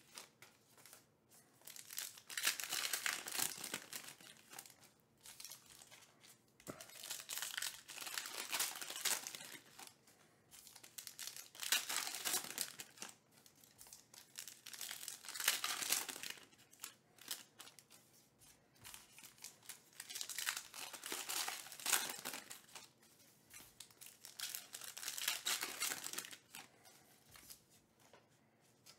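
Trading card pack wrappers crinkling and tearing as packs are opened by hand, in repeated bursts a few seconds apart.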